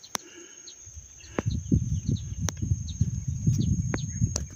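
Outdoor field ambience: faint short bird chirps and a thin steady high tone over an irregular low rumble on the microphone that sets in about a second in, with a few sharp clicks.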